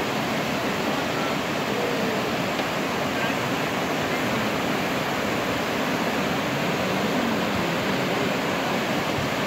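Whitewater river rapids rushing steadily: fast water churning over rocks in a continuous, even noise.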